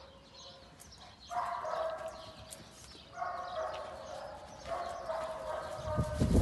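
A dog whining: three long, high-pitched whines one after another. Near the end come a few heavy thumps, which are louder than the whines.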